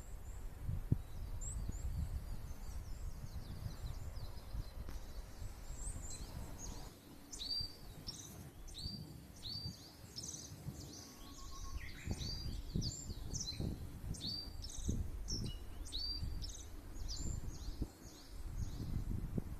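Wild songbirds calling in quick series of short, high chirps, each hooking upward, growing busier about seven seconds in, over a steady low rumble.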